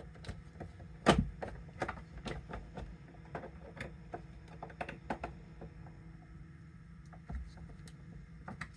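Plastic clicks and knocks from a Nespresso coffee machine's handles and housing being worked back into place, with one louder knock about a second in, then a run of small irregular clicks that thins out in the second half.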